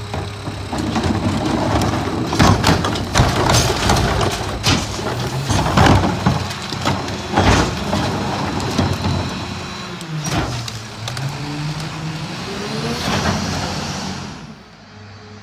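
Mack MRU garbage truck with a McNeilus rear-loader body: trash carts are banged empty into the rear hopper, with repeated knocks and clatter. Later the truck's diesel engine rises and falls in pitch as it pulls away, with a hiss of air near the end.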